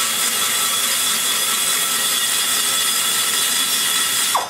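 Die grinder with a carbide cutter running steadily as it cuts the metal inside the exhaust port of an aluminum big-block Chevy cylinder head; it cuts off just before the end.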